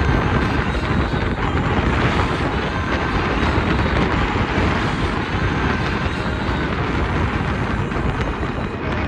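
Strong wind buffeting the microphone: a steady rushing noise with a deep, fluttering rumble.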